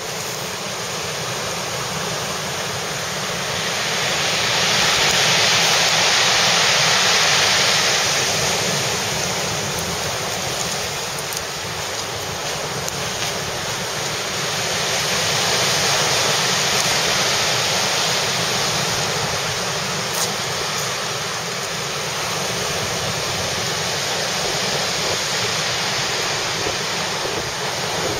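Rough sea surf breaking on a pebble beach in strong wind. It rises and falls, with louder surges a few seconds in and again about halfway.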